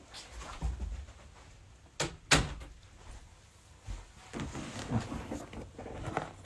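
A door being opened and shut: two sharp knocks close together about two seconds in, then softer clattering and rustling.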